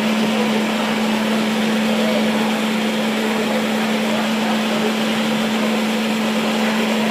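A machine running steadily, a constant hum over an even rushing noise, with no change in pitch or level.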